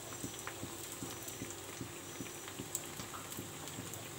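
Battered potato and flattened-rice (chuda) patties frying in hot oil in a shallow pan: a steady crackling sizzle with many small scattered pops.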